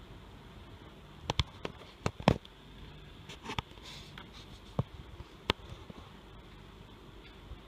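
Metal display-frame tubes being handled and fitted together: a series of sharp clicks and light taps, several close together in the first few seconds, then a few spaced-out ones.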